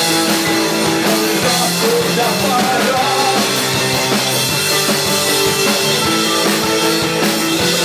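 Rock band playing live: drum kit and amplified instruments, loud and steady, with no clear vocal line.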